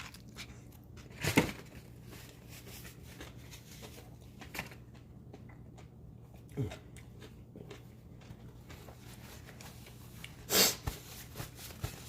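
A person biting into and eating fried chicken, with a sharp crunch of the bite about a second and a half in and a few fainter eating noises after, and another short sharp noise near the end.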